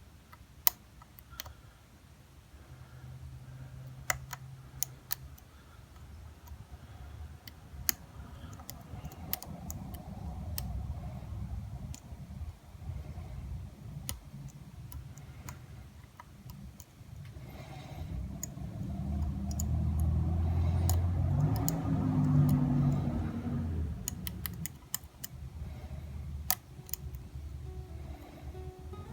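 Scattered small metallic clicks and ticks of lock picks and a tension tool working in a Schlage Primus lock core. A low rumble swells up about two-thirds of the way through and fades again.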